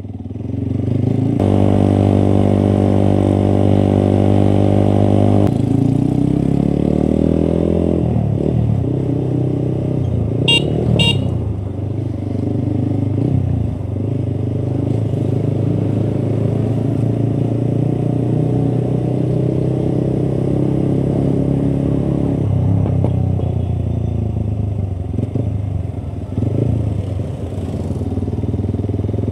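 150 cc café-style motorcycle's engine running while ridden, holding a steady pitch for a few seconds, then rising and falling as the bike gets under way, with engine and road noise after that. Two short horn beeps about ten seconds in.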